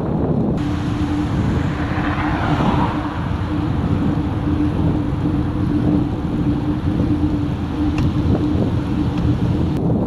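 Wind rushing over the microphone of a bike-mounted camera while cycling, mixed with tyre and road noise, with a steady low hum underneath.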